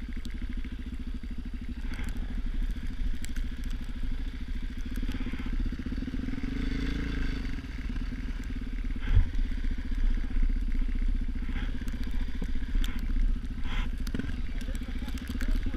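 Motorcycle engine running at a steady pace while riding, rising briefly in pitch midway, with a sharp knock about nine seconds in.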